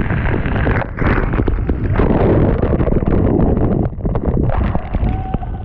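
Wind buffeting the microphone in heavy gusts over the rushing of the Iguazu waterfalls and a motorboat's engine.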